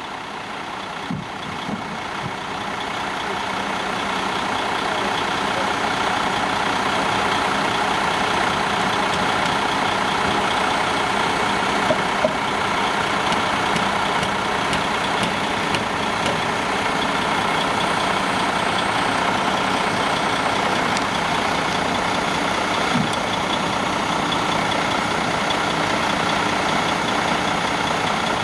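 Heavy machinery engine running steadily, swelling over the first few seconds and then holding a level hum.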